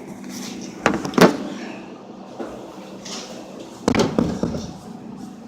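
A few sharp knocks and thumps: two close together about a second in and another near four seconds, over a faint steady hum that stops with the later knock.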